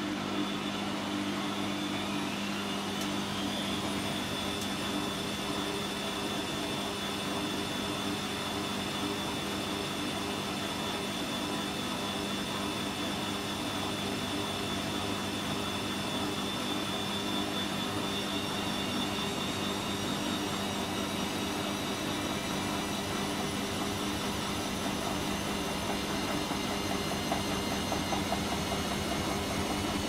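Bosch Maxx 5 washing machine accelerating into a spin, its motor whine rising in pitch over the first few seconds and then holding steady over a constant drum hum.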